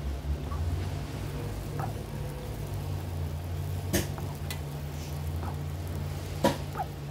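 Steady low machine hum with a few light clicks and taps: a sharp click about four seconds in and a louder one near the end.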